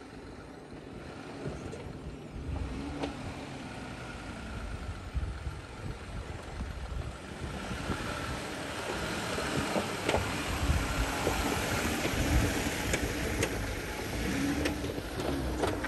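Jeep Gladiator Mojave pickup driving up a dirt-and-rock trail: a steady low engine and drivetrain rumble with tyre noise that grows louder from about halfway through, and scattered sharp clicks of stones under the tyres.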